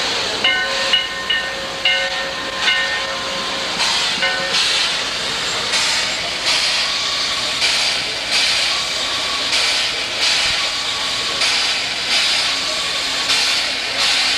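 Standing Virginia & Truckee 4-4-0 steam locomotive Reno hissing steam, with a steady pulsing beat a little under once a second. For about the first four seconds a bell rings in quick repeated strokes over the hiss.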